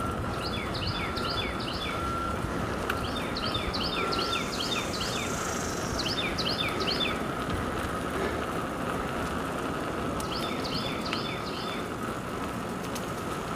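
A bird calling in four short bouts of rapid, downward-sweeping chirps, over a steady rushing background noise with a faint steady high tone.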